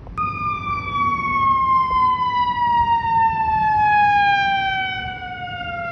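Fire engine siren sounding as the truck drives past: one continuous tone that falls slowly and steadily in pitch, loudest about four seconds in, and cuts off near the end.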